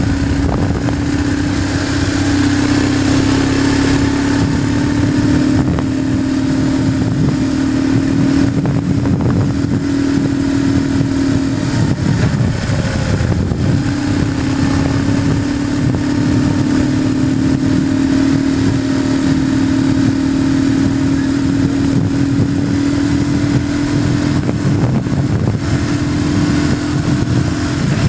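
BMW GS motorcycle engine running steadily under way on a narrow road, mixed with wind rush. Its note breaks off briefly about halfway through, then comes back.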